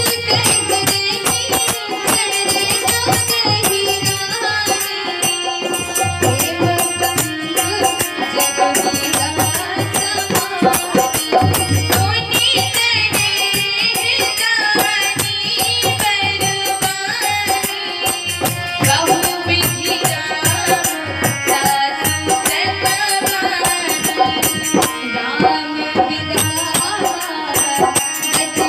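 A woman singing a devotional Hindi bhajan, accompanied by a harmonium's sustained chords and a steady percussion beat from hand cymbals and drum.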